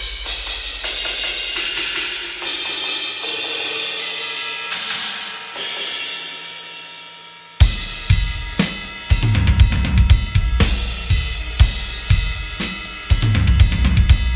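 Sampled metal drum kit from the EZdrummer 3 MetalHeads library playing. For the first seven seconds or so a wash of cymbals slowly fades away. Then the full kit comes in hard, with heavy kick and snare hits under the cymbals.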